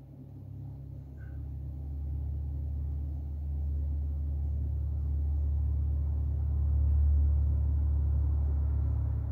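A low rumble that builds steadily over several seconds, loudest near the end, then cuts off suddenly.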